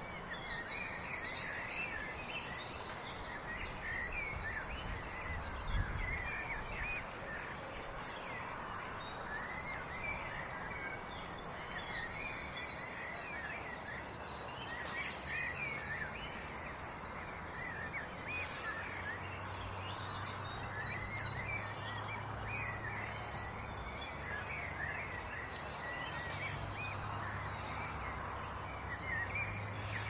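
Many small birds chirping and singing in short, repeated phrases over the steady rush of a waterfall. A low, steady hum joins about halfway through.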